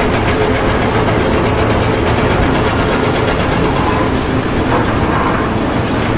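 Loud, steady mechanical noise of heavy machinery running, with a low hum beneath it.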